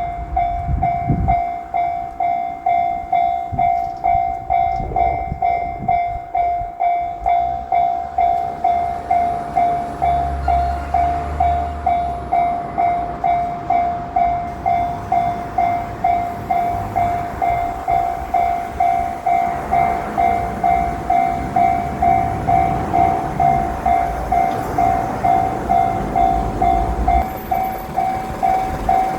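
Japanese level-crossing warning bell ringing steadily, about two strokes a second. A JR Shikoku 7200 series electric train passes through the crossing, its low rumble rising under the bell in the middle and later part.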